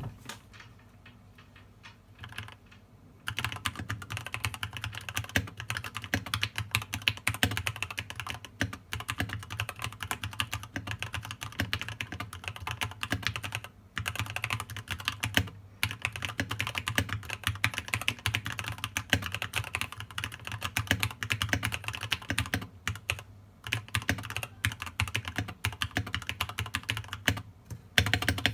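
A keyboard being typed on quickly for a sound test: a fast, uneven stream of key clicks that stops briefly a few times. The first few seconds are quieter, with only scattered clicks.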